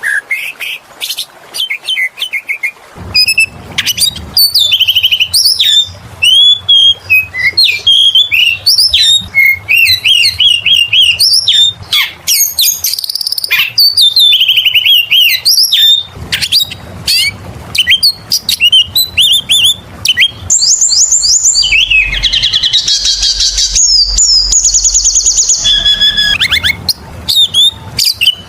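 Oriental magpie-robin (kacer) singing continuously in a fast, varied run of whistled notes, slurs and chirps, with a harsher, buzzier stretch a little before the end. A low hum runs under the song.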